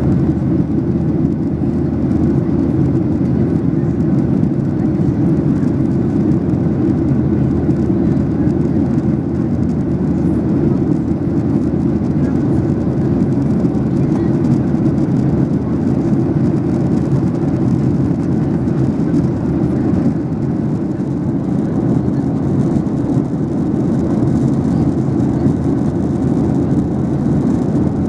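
Cabin noise inside a Boeing 737-800 in flight: a steady, deep rumble of its CFM56-7B turbofan engines and the airflow over the fuselage.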